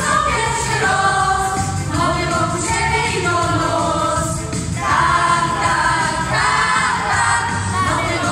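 Polish folk vocal ensemble singing a song together in chorus, women's and children's voices joined in one melody through microphones, over a steady low accompaniment.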